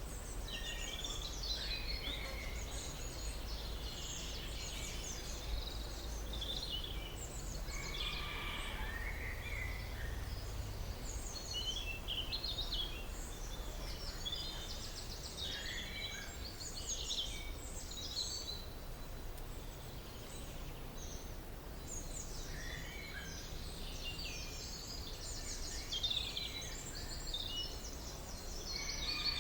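A chorus of several songbirds singing and calling at once, with many short overlapping chirps and trills, over a steady low background rumble.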